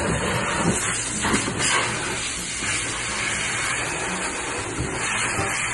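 Pet grooming dryer blowing a steady rush of air through a dog's wet coat.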